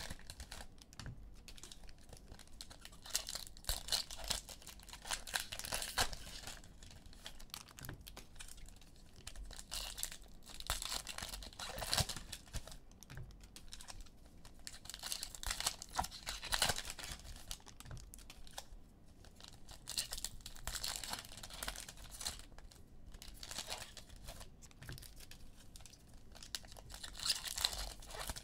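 Foil trading-card pack wrappers being torn open and crinkled by hand, again and again with short pauses between.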